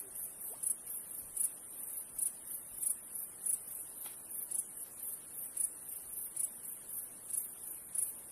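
Insects chirping high-pitched in a steady, even rhythm of about two to three chirps a second.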